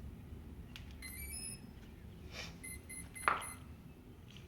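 Electronic power-up beeps from a quadcopter drone as it boots: a short stepped run of tones about a second in, then a quick string of short beeps around three seconds in. A single sharp click, the loudest sound, comes near the end of the beeps.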